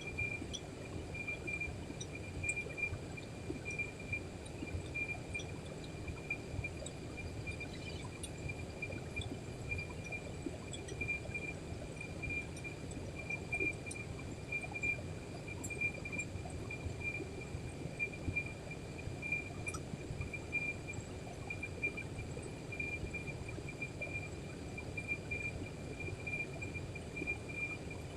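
An insect chirping steadily in a high, rapidly pulsing trill that does not let up, over a low rumbling background noise.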